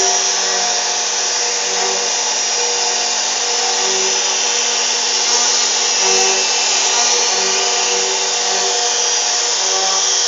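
CNC router spindle running steadily while carving wood, a constant whine of several tones over the noise of the cut.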